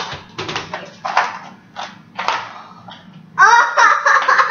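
Young girls laughing: short giggles, then loud, high-pitched laughter breaking out about three and a half seconds in.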